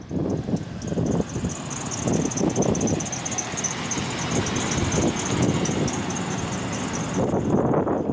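A 1990s Chevrolet SUV rolling slowly past at low speed, its engine and tyres running under irregular wind buffeting on the microphone. A high, rapidly pulsing squeal runs over it and stops near the end.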